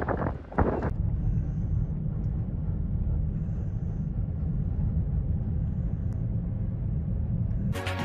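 Steady low rumble of a road vehicle, following a louder rush of noise that cuts off about a second in.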